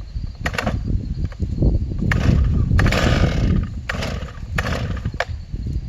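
Stihl MS 311 chainsaw running, its sound swelling in a series of short bursts about every half second to a second, loudest about three seconds in.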